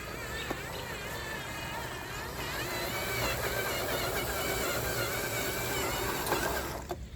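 Electric motor and gear drivetrain of a 1/10-scale RC trail truck whining, its pitch rising and falling with the throttle over a steady rushing noise, then cutting off shortly before the end.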